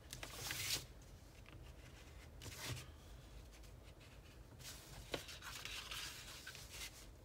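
Black oil pastel scraped along drawn lines on thin watercolor paper in short scratchy strokes, then the sheet sliding and turning on the table, with a light click about five seconds in.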